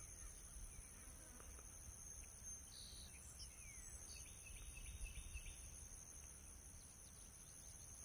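Faint summer field ambience: insects trilling steadily at a high pitch, with a low rumble of wind or handling. A few faint bird chirps come through about three to five seconds in.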